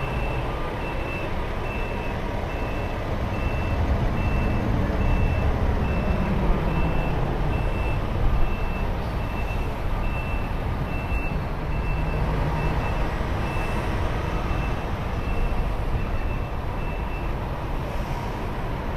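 A vehicle's reversing alarm beeping at a steady, even rate, stopping near the end, over a low steady rumble of heavy trucks.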